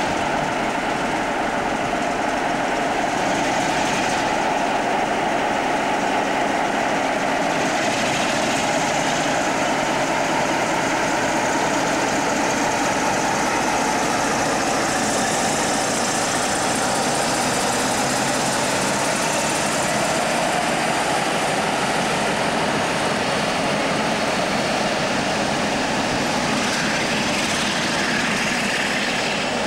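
Class 47 diesel locomotive's Sulzer twelve-cylinder engine running steadily.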